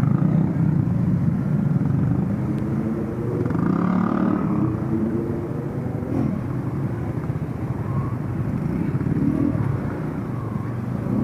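Yamaha Sniper 150's single-cylinder four-stroke engine running at low speed in stop-and-go traffic, its note shifting a little with the throttle, with other motorcycles and cars idling close by.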